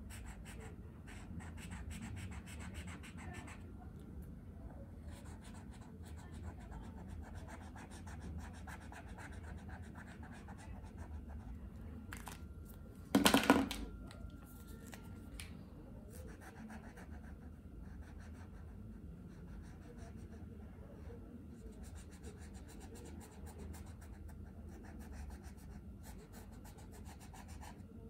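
Posca paint marker tip scratching and rubbing across paper in quick strokes as an area is coloured in. A single loud knock sounds about halfway through.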